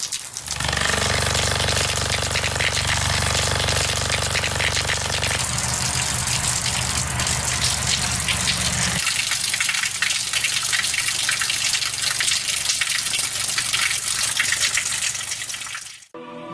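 Water gushing steadily, with a low steady hum underneath. The hum shifts about halfway through, and the whole sound cuts off suddenly near the end.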